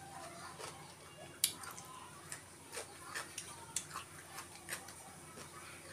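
Close-up mouth sounds of eating boiled shrimp by hand: a string of short, irregular wet clicks and smacks from chewing and the lips, the sharpest about a second and a half in.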